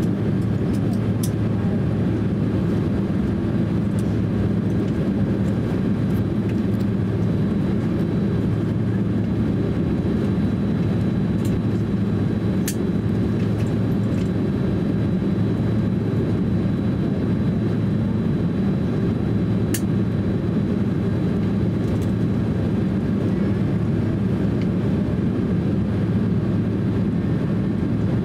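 Cabin noise of a Boeing 767-300 airliner taxiing: a steady low rumble of the engines at idle and the airframe rolling, with a faint steady high whine and a few faint clicks.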